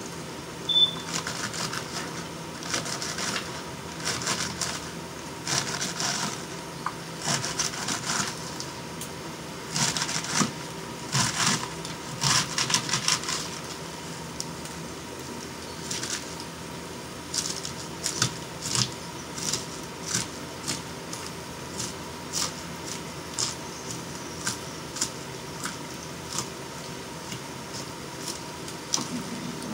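Kitchen knife chopping lettuce on a cutting board: irregular crunching cuts and knocks of the blade on the board, coming in short runs with pauses.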